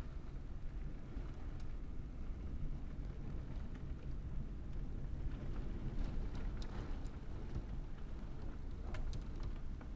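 Thunderstorm wind and rain: a steady low rumble, with scattered sharp ticks of drops hitting nearby surfaces, more of them in the second half.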